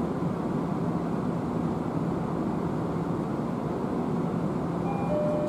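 Steady hum and rumble inside a Tobu 70090-series THライナー train car, at a station while the train corrects its stopping position. A few steady tones come in near the end.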